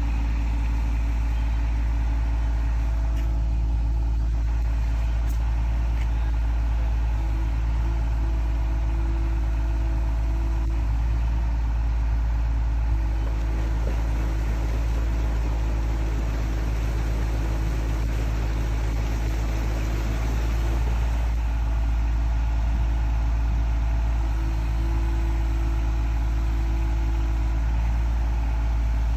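Aquatic weed harvester's engine running steadily.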